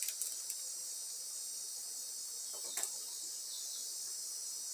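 Folding wooden ruler being unfolded, its joints giving a few light clicks at the start and a sharper click just under three seconds in, over a steady high-pitched background hiss.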